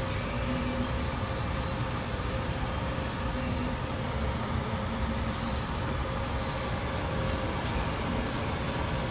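Steady rumbling noise of shop equipment running, with a faint constant hum.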